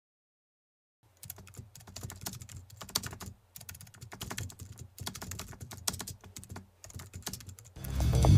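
Keyboard typing sound effect: rapid clicks in runs broken by short pauses, starting about a second in. Near the end, music with guitar and drums starts up.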